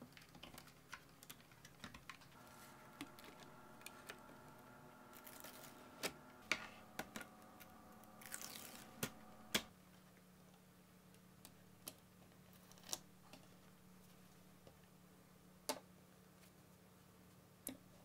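Magnetic balls clicking and clacking against each other as magnet-ball pieces are set down and stacked by hand: scattered sharp clicks, busiest about halfway through, with a brief rattling slide just before the loudest snaps.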